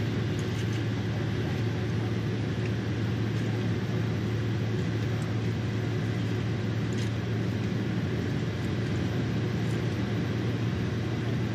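Steady cabin noise of a Boeing 767-300ER taxiing, heard from a window seat over the wing: a constant low engine hum under an even rush of engine and air noise.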